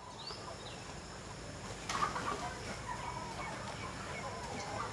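Peruvidai chickens clucking faintly in short calls, with one louder call about two seconds in.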